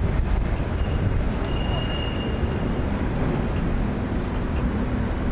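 City street traffic rumble with an electric tram approaching along the rails, a low steady hum coming in about halfway through. A faint high tone sounds briefly about two seconds in.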